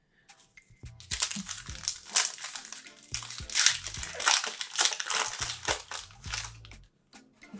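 Foil wrapper of a baseball card pack crinkling as it is torn open and handled, a dense crackle starting about a second in and stopping shortly before the end.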